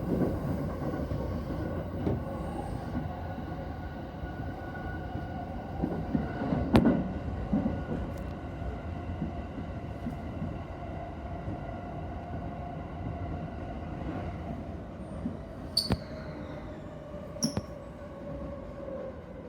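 Yokosuka Line electric commuter train running on the track: a steady rumble with a faint motor whine, and a few sharp clicks, one about a third of the way in and two near the end.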